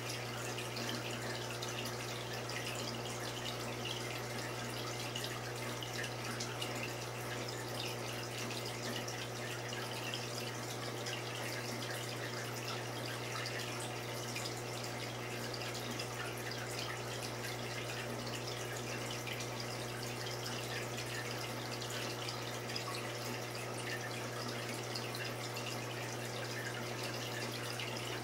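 Saltwater aquarium water trickling and splashing steadily over a low, constant pump hum.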